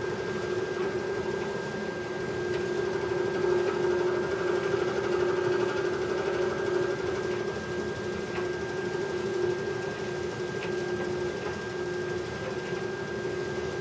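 1974 Whirlpool portable dryer running with its top off, drum turning on its belt: a steady low hum with a thin high whine over it, swelling a little a few seconds in. The vibrating noise comes from a bad idler pulley.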